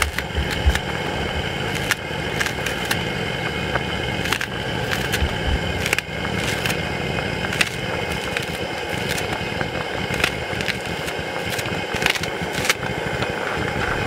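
Kitchen scissors snipping a green onion into a pot, repeated short snips about one or two a second, over the steady noise of a portable gas burner under a boiling pot.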